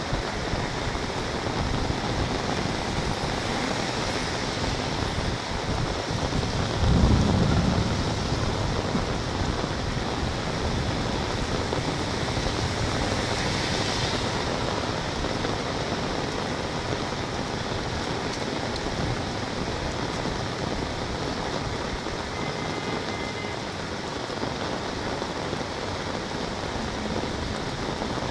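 Heavy rain falling steadily on wet pavement and runoff water rushing into a culvert drain, with a brief deep rumble about a quarter of the way through.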